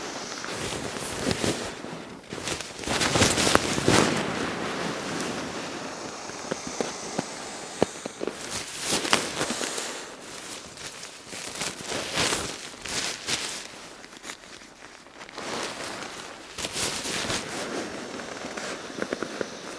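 Nylon pump sack of an Exped sleeping mat rustling and crinkling as it is repeatedly flapped open to catch air and squeezed down to push the air into the mat. The rustling comes in bursts every few seconds.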